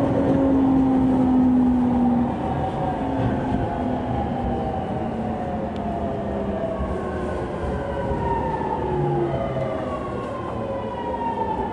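JR East 209 series electric train's MT68 traction motors whining under braking as the train slows into a station, several tones gliding steadily downward over the rumble of the running gear.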